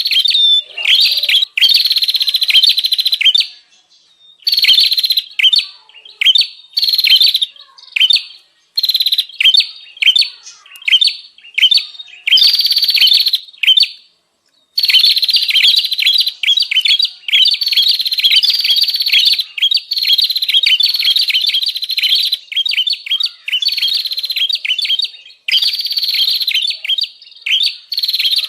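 Prenjak songbird calling excitedly in rapid runs of sharp, high chirps, each burst lasting a second or two with short breaks between. This is a noisy prenjak call of the kind used as a lure to draw in wild prenjak.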